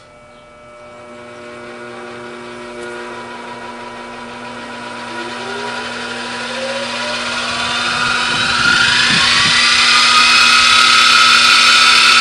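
Grizzly G0704 milling machine's spindle running up to speed as its new speed-control knob is turned up, a whine climbing steadily in pitch and growing louder, to about 2,100 rpm near the end. The steady rise shows the replaced potentiometer controlling the spindle speed.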